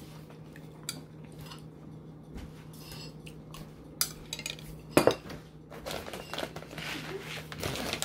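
Metal cutlery clinking against a plate of cooked brown rice while eating: a few scattered sharp clinks, the loudest about five seconds in, over a steady low hum.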